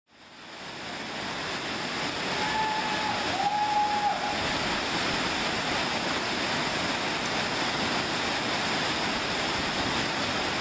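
Waterfall pouring, a steady rushing noise that fades in over the first two seconds. A faint brief whistle sounds twice about three seconds in.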